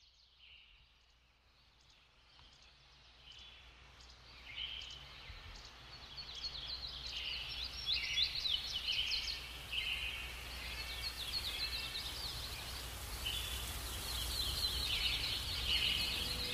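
A chorus of birds chirping and twittering, many short, quick calls overlapping, growing steadily louder over the first several seconds.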